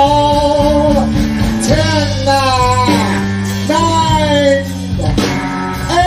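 Live rock band music: a voice sings long, sliding held notes, each about a second, over a steady bass line.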